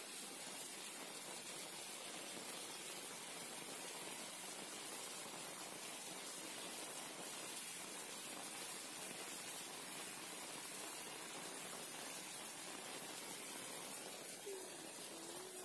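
Heavy rain falling, heard as a faint, even hiss.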